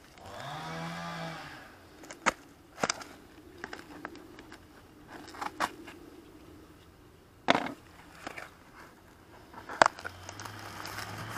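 A plastic-wrapped cardboard parcel being cut open with a utility knife and unpacked: scattered sharp snaps, crackles and scrapes of plastic, cardboard and bubble wrap. A brief pitched hum sounds near the start, and a steady low drone begins near the end.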